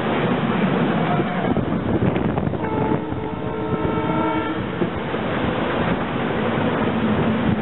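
SEPTA Silverliner IV electric multiple-unit cars rolling steadily past at close range, their wheels running on the rails. Around the middle, a steady tone of several notes sounds for about two seconds over the rolling noise.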